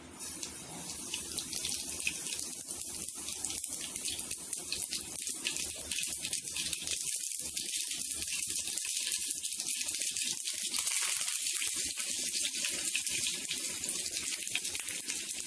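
A tempering of mustard and cumin seeds sizzling in hot oil. It is a steady, hissing sizzle crowded with small pops and crackles, and it starts suddenly right at the beginning.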